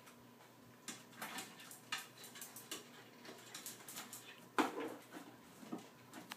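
Small shaggy dog up on its hind legs, claws scratching and tapping at a wooden shelf unit and the things on it: irregular light clicks and scrapes, with one louder noise about four and a half seconds in.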